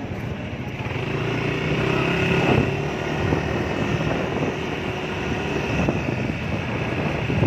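A Yamaha NMAX scooter riding along, its single-cylinder engine running steadily under a haze of wind and road noise.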